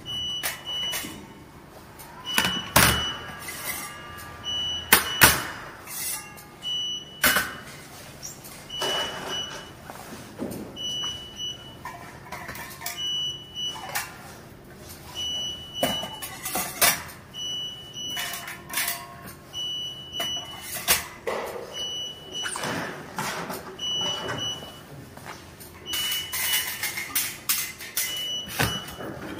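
Stainless steel tissue-processor dehydration baskets and slotted inner racks clinking and rattling as they are handled and fitted together. Over them, a short, high, steady-pitched beep repeats every couple of seconds.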